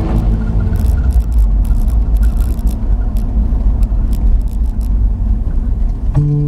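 Roadster driving along: a steady low rumble of road and wind noise with scattered brief clicks. Guitar music comes back in near the end.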